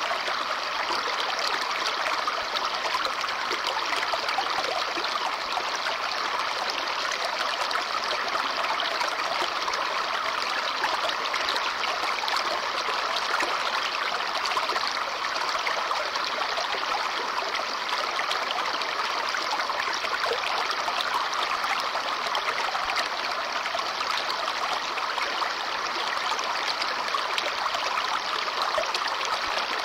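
A babbling brook: shallow water running and splashing over stones, a steady, unbroken rush.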